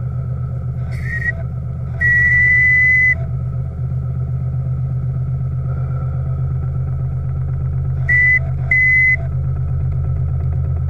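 Steam launch's whistle blowing four blasts at one steady pitch: a short one, a long one of about a second, then two short ones near the end. Under them runs a steady low rumble with a fast regular beat.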